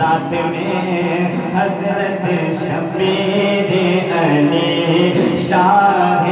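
A man singing a naat, an Urdu devotional poem, into a microphone over a PA system. He holds long, wavering notes.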